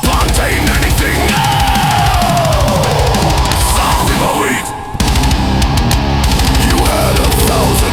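Loud, aggressive heavy-rock song with a pounding drum kit; the band drops away briefly about five seconds in, then comes back in at full level.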